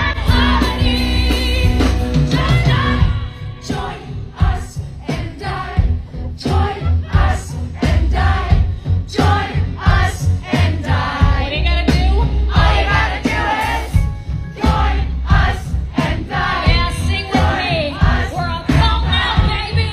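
A woman singing live into a handheld microphone over a loud band, with strong bass and a steady drum beat.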